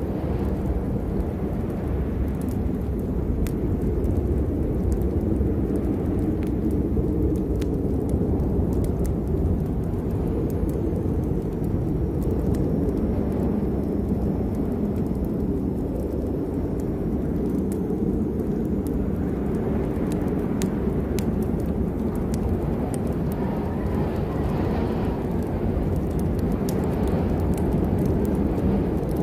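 Steady rain, with a continuous low rumble underneath and scattered sharp drop ticks.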